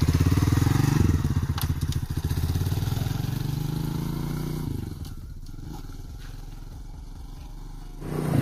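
Spark SP125C-2C motorcycle's 125 cc engine pulling away through the gears. The revs climb steadily for a few seconds, drop off about halfway through and run quieter, then pick up again near the end.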